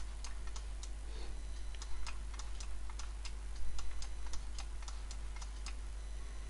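Irregular sharp clicks of a computer mouse and keyboard, two or three a second, over a steady low hum.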